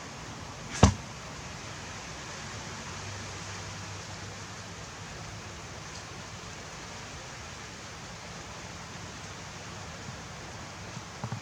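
A single sharp knock less than a second in, then steady hiss.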